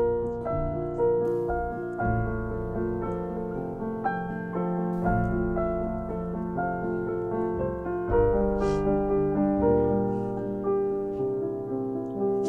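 Background music led by piano, its sustained notes changing about once a second over a low bass.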